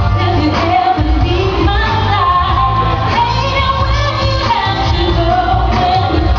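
A woman singing an R&B song live into a microphone over amplified backing music, holding long notes.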